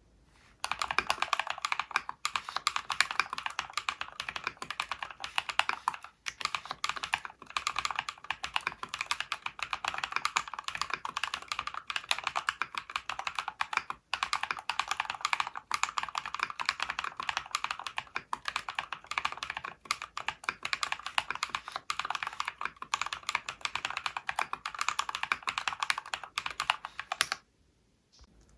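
Fast, continuous typing on a mechanical keyboard fitted with Holy Panda tactile switches and XDA-profile keycaps: a dense stream of key clacks. It starts just under a second in and stops abruptly about a second before the end.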